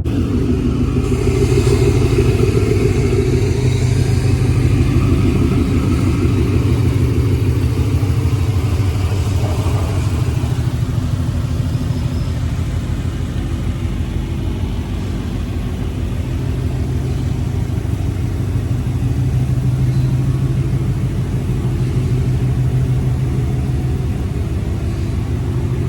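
A Ford Coyote 5.0 V8 in a 2021 Mustang GT with long-tube headers, running steadily at low engine speed with no revving, a deep exhaust note.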